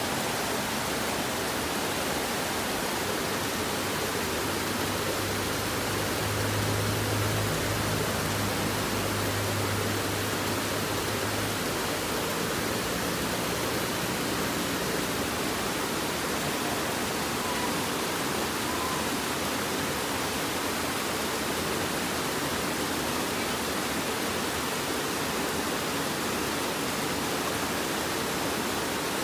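River water rushing over boulders and through small rocky cascades, a steady, even rush.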